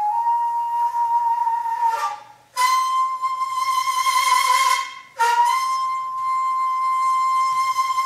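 Daegeum, the Korean bamboo transverse flute, playing long held notes with a bright, buzzy edge. There are two short breaks in the playing, about two and five seconds in, each followed by a slightly higher note.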